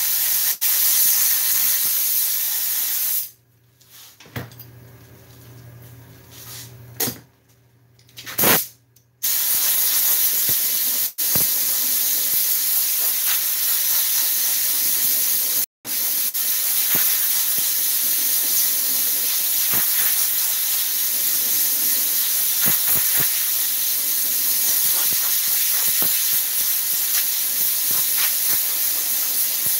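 An air spray gun hisses as it sprays glue for about three seconds, then stops. After a pause broken by two short puffs of air, a compressed-air blow gun hisses almost without a break, blowing air over the glued foam to dry the glue faster. The blow gun cuts off briefly twice, at about eleven and sixteen seconds in.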